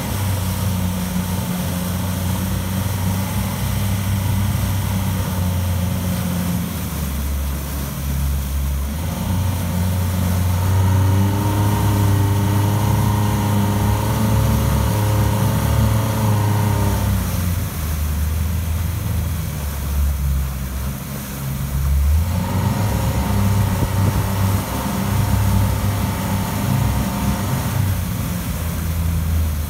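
Outboard motor on a rigid inflatable boat running in gear in a test tank, its propeller churning the water. The engine picks up for several seconds about ten seconds in and again after twenty seconds, then settles back between.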